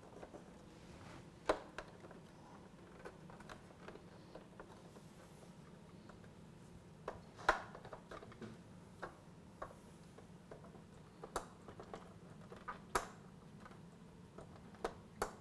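Hard plastic parts of a 1986 LJN Mutant Fistpounder toy clicking and tapping against each other as a console's two tabs are worked into their slots. There are scattered sharp clicks, a dozen or so at uneven intervals, over a faint room hum.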